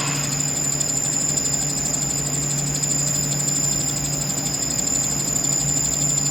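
CNC lathe running steadily: a constant hum with a high, steady whine.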